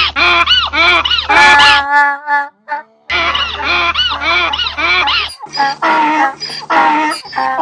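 Rhythmic honking cries, about three a second, over a steady low hum, with a short break about two and a half seconds in. A different, more ragged run of cries starts near the end.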